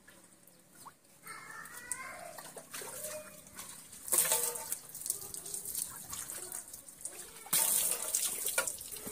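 Water poured from a bowl over a bather and splashing onto a concrete slab, in two loud pours: a short one about four seconds in and a longer one about seven and a half seconds in. Animal calls are faintly heard early on between the pours.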